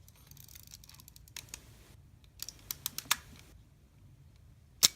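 Kodak Retina IIIc folding camera being worked by hand: small mechanical clicks from the controls in the middle, then one sharp, loud click near the end as the leaf shutter fires.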